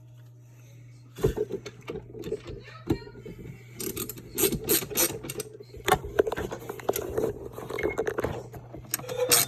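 Screw being driven by hand with a Mac Tools multi-bit screwdriver: clicking and scraping of the bit and screw, starting about a second in and becoming dense, irregular runs of sharp clicks from about four seconds in.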